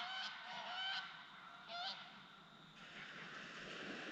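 Geese honking, a few short calls in the first two seconds, then a steady background hiss.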